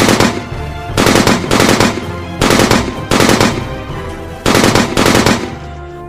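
Machine-gun fire sound effect in about four short rapid bursts, roughly a second and a half apart, over low background music.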